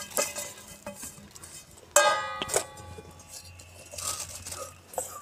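A metal kitchen vessel knocked sharply about two seconds in and ringing for over a second, with a second clink, as kitchen scraps are tipped out of it into a compost bucket; softer scraping and rustling follow.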